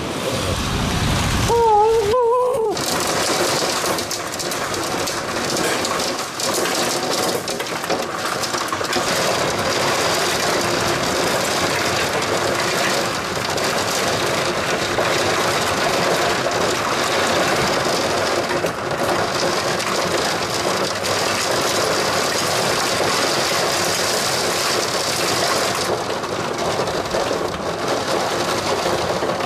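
Heavy rain falling steadily in a thunderstorm downpour. About two seconds in, a brief wavering tone is heard over a low rumble before the rain takes over.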